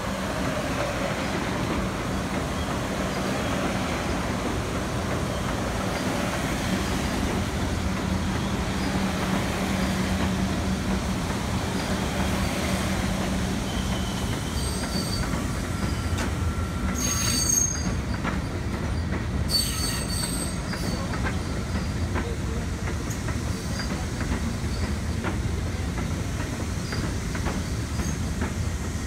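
R62A subway cars running slowly past on elevated track, with steady wheel rumble and clacking over the rail joints and a low motor hum through the first half. Two brief high wheel squeals come about 17 and 20 seconds in.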